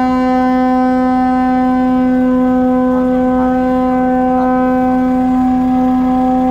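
Lorry air horn held in one long, steady blast on a single low note, sounded as a funeral send-off tribute.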